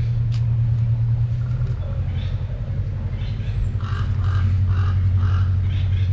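Low steady hum of a motor vehicle's engine running, its pitch dropping slightly about two seconds in. Four short, evenly spaced bursts sound over it past the middle.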